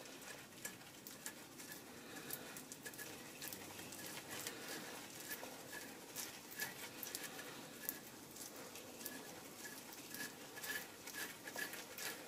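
Faint, irregular light metallic clicks and scrapes as the castellated hub nut on a Triumph TR4 front stub axle is unscrewed by hand. The nut is only lightly tightened.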